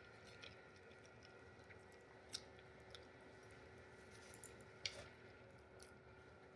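Near silence with a few faint, short mouth clicks from chewing, the clearest two about two and a half and five seconds in.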